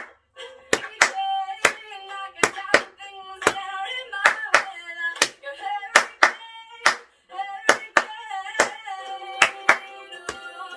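Hand claps in a steady rhythm, a quick pair then a single over and over, loud over a young girl's singing voice played back from a recording.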